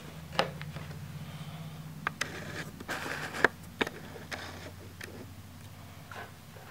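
Scattered light clicks and taps, about a dozen, the sharpest about halfway through, over a low steady hum.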